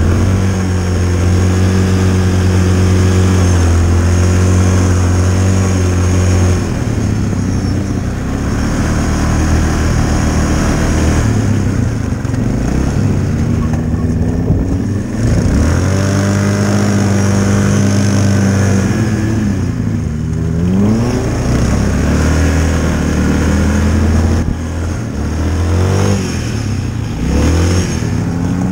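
Yamaha Kodiak 450 ATV engine running under throttle while drifting on ice. It holds a steady note for the first several seconds, then its pitch rises and falls again and again, with deep dips about halfway and about two-thirds of the way through.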